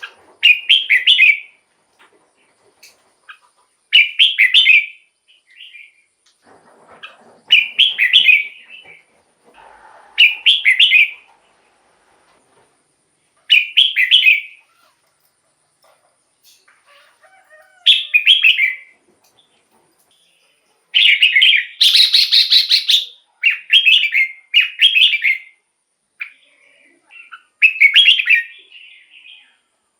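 Red-whiskered bulbul singing: short, bright, warbled phrases about a second long, repeated every few seconds, with a quicker run of phrases about three-quarters of the way through.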